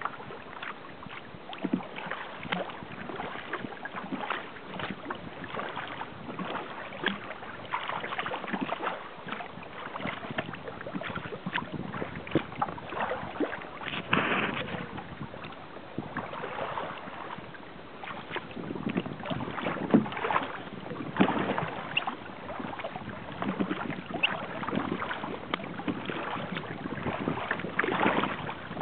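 Water splashing and lapping irregularly against a small sailing kayak's hull as it moves through choppy water, over a steady rush of water and wind.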